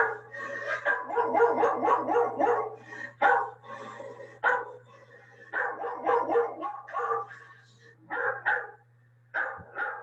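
Dog barking in quick, repeated barks, thinning to a few separate barks near the end, over a steady low hum.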